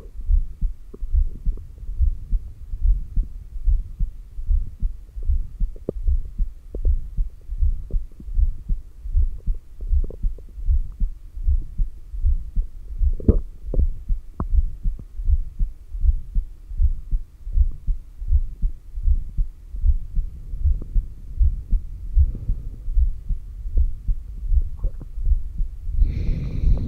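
Human heartbeat heard through a stethoscope on the chest over the heart's apex: a steady run of regular low thumps. A few faint clicks fall among them, and near the end a louder rushing noise comes in.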